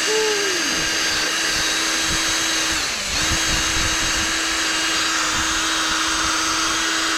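Power drill spinning a buffing pad against a plastic headlight lens, running at a steady speed. It briefly slows under load about three seconds in, then comes back up to speed.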